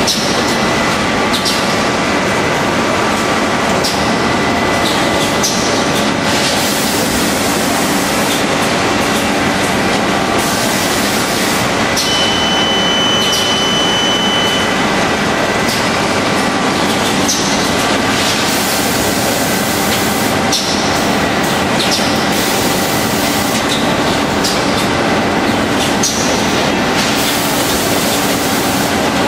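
Automatic bag-packing line running: a steady, loud machinery and conveyor noise, with short high bursts of noise every few seconds. A thin, steady high beep sounds for a couple of seconds about halfway through.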